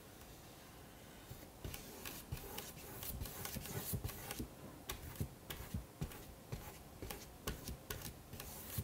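Wide flat watercolor brush sweeping back and forth across watercolor paper, making faint scratchy swishes with light ticks. The strokes start about a second and a half in.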